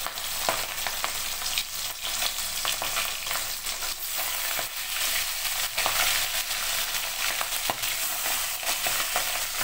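Pabda fish frying in hot mustard oil in a kadai: a steady sizzle with many sharp crackles and pops as the fish spits in the oil.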